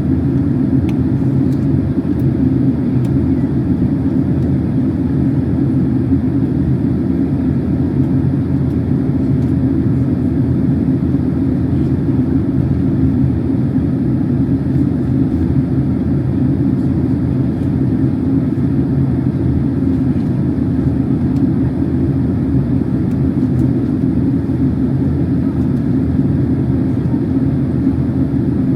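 Steady low rumble and rush of a Boeing 767-300 airliner's engines and airflow, heard from inside the passenger cabin during the descent toward landing.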